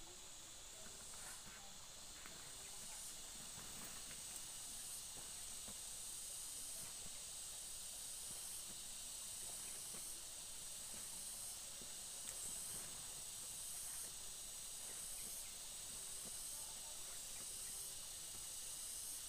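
Insect chorus: a steady high-pitched buzz that swells in steps about every one and a half to two seconds, with faint ticks beneath.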